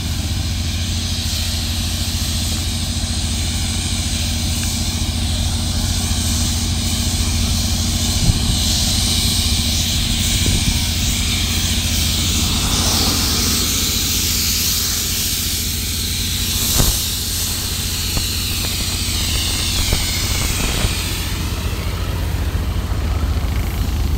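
An engine running steadily under a strong hiss of hot tar being sprayed from a hand-held lance. The hiss swells in the middle and again near the end.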